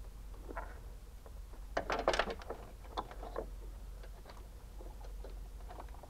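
Hands handling and tucking plastic-sheathed wiring in a car's engine bay beside the battery: rustling and light plastic clicks. The busiest, loudest flurry comes about two seconds in, then scattered small clicks.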